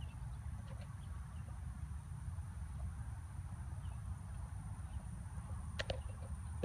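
Wind rumbling on the microphone outdoors, with a few faint, short bird chirps and a brief clicking knock about six seconds in.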